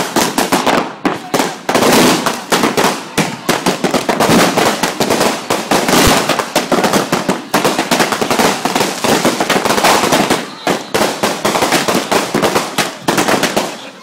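Fireworks going off in a rapid, continuous barrage of crackles and bangs, many per second.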